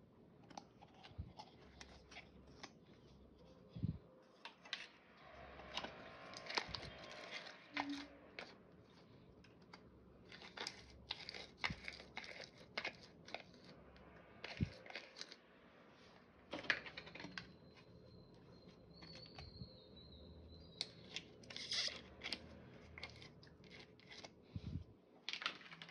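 Clear purple slime being pulled out of its plastic tub and squeezed by hand, making irregular sticky crackling and popping clicks.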